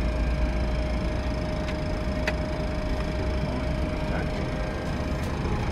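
Boeing 737 flight deck during an engine start on the air starter: a steady low rumble and hiss with a steady whine that fades near the end, and a couple of light clicks.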